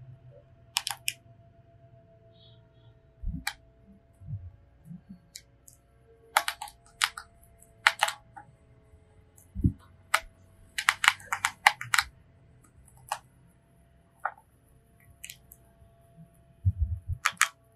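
A hamster nibbling a crisp grilled rice cracker: irregular clusters of small, sharp crunches with pauses between bites, and a few soft low thumps.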